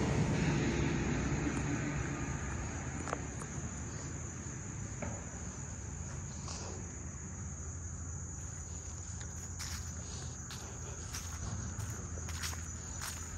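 Steady high-pitched chirring of crickets, with a low rumble fading away over the first couple of seconds. Footsteps on a leaf-covered dirt path click and crunch through the second half.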